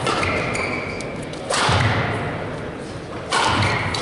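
Badminton rally: two hard racket strikes on the shuttlecock, about a second and a half in and again near the end, each ringing on in the hall. Shoe squeaks on the court floor come between them.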